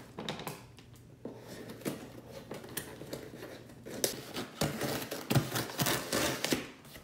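Scissors cutting through the packing tape of a cardboard shipping box, with short snips and scrapes against the cardboard. The cutting gets busier and louder about halfway through.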